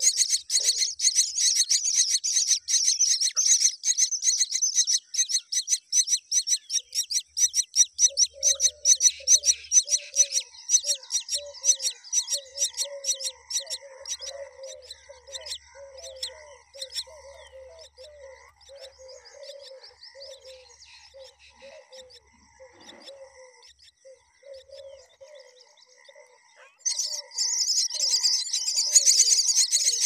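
Common myna nestlings begging with rapid, high-pitched chirping while the adult feeds them at the nest. The chirping dies down through the middle and starts up loud again near the end. A softer, lower repeated call runs through the middle stretch.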